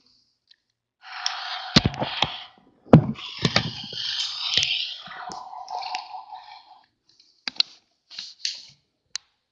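Handling noise from the opened-up toy crane truck: sharp clicks and knocks of plastic parts with two stretches of hissy scraping, the second carrying a faint steady hum, then a few short scratches near the end.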